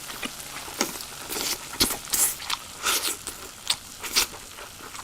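Crunchy eating close to the microphone: irregular sharp crunches of biting and chewing food, about two a second.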